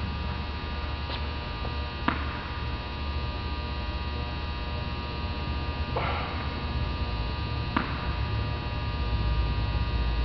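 Steady electrical mains hum with a few sharp single knocks, one about two seconds in and another near eight seconds, and a short hiss near six seconds.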